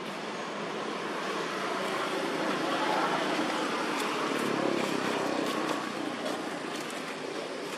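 A motor vehicle passing, its engine and road noise swelling for a few seconds midway and then fading, over a steady outdoor background hiss, with a few faint clicks.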